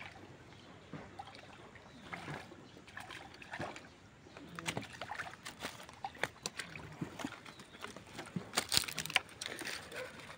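A hooked fish splashing and sloshing at the surface of a pond as it is brought in toward the bank, with scattered small clicks and rustles; a louder flurry of splashes comes about eight and a half seconds in.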